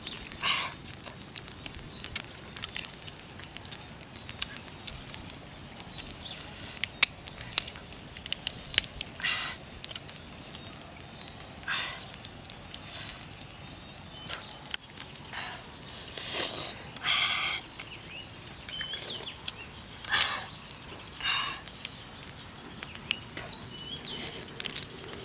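Short rustles and sharp crackles of dry leaf litter as hands handle small crabs, with a few faint bird chirps.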